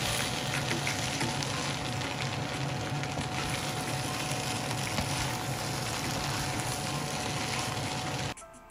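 Meat biryani sizzling steadily in a hot pan while being stirred with a wooden spatula. The sizzle cuts off abruptly near the end.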